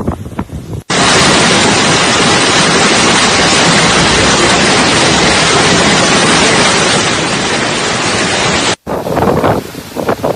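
Typhoon wind buffeting the microphone: gusty, uneven blasts, cut abruptly about a second in to a dense, steady roar of wind noise that runs until it is cut back to gusty buffeting near the end.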